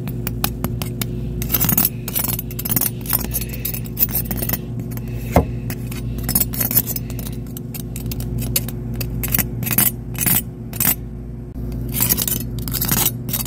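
Chef's knife tapping and scraping across the crackling-crisp skin of spit-roasted rolled pork belly (cebuchon): a rapid, irregular run of sharp clicks and crunches. This is a crispy test, and the hard, crackly sound shows the skin has roasted crisp. A steady low hum runs underneath.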